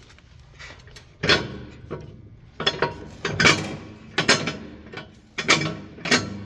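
A run of sharp metal clanks and knocks, about seven, irregularly spaced, each ringing briefly.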